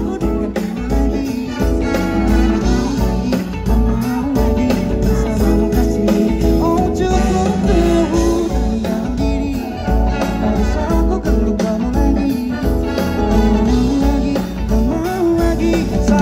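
Live pop band playing with a male lead singer singing into a microphone, backed by drums, keyboard and electric guitar over a steady beat.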